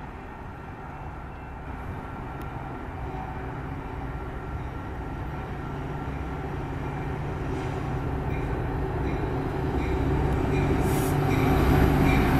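An EMD F40PH diesel locomotive, with its 16-cylinder two-stroke 645 engine, drones steadily at the head of a passenger train, growing louder as it approaches.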